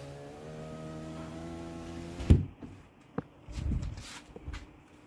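Toyota Sienna power window motor running as the glass goes up, a steady whine that stops with a sharp thump about two seconds in as the glass closes into the freshly installed weatherstrip. A few soft knocks follow.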